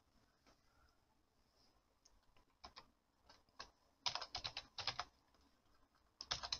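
Computer keyboard keys being typed: a few scattered keystrokes, then a quick run of them about four seconds in and another just before the end.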